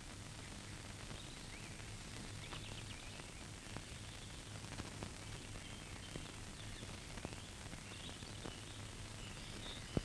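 Faint outdoor ambience with scattered short bird chirps over a steady low hum and occasional faint clicks from an old film soundtrack.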